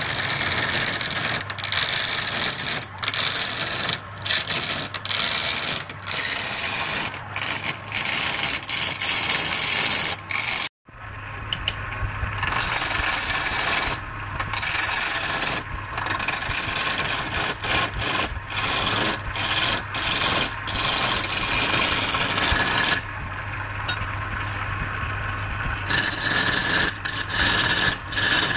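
Wood lathe turning a large wooden blank while a hand-held chisel cuts it: a coarse scraping hiss that surges and eases in quick irregular strokes as the tool is pressed in, over the steady hum of the lathe motor. The sound cuts out for an instant about eleven seconds in.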